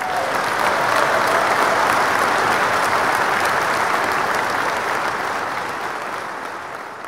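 Applause from many hands clapping, quickly swelling to full level and then slowly dying away over the last couple of seconds.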